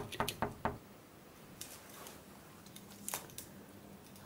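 A pen clicking: a quick run of about five sharp clicks in the first second, then a couple of single clicks later.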